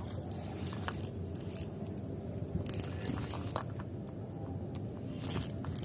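Ryobi Smurf spinning reel being cranked to reel in a hooked fish, its gears whirring steadily with scattered light ticks.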